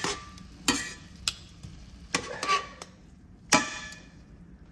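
Metal tongs clicking against a stainless steel frying pan as seasoned swordfish medallions are turned, a handful of sharp, ringing clicks at uneven spacing, the loudest about three and a half seconds in, over a faint sizzle of the fish frying in olive oil.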